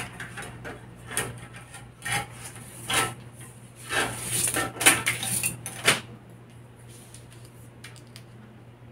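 Rulers and a metal L-square being handled on a table: a run of clicks, taps and clatters over the first six seconds, then only a low steady hum.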